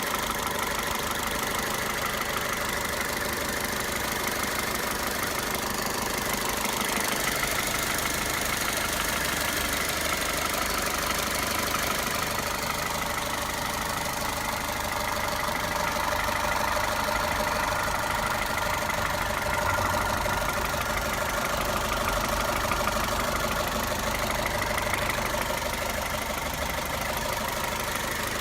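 Toyota 1.8-litre VVT-i four-cylinder petrol engine idling steadily.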